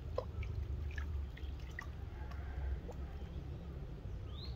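A live duckling paddling and dabbling at the water's edge: small scattered splashes and wet clicks over a low steady rumble, with one short rising chirp near the end.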